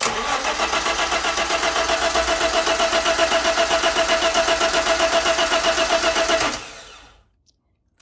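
Car engine cranked on its starter with an even, rapid pulsing, turning over for about six and a half seconds without catching, then stopping: a crank-no-start fault.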